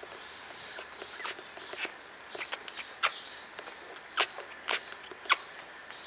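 Newborn puppies squeaking: a string of short, sharp, high squeaks, coming more often and louder in the second half.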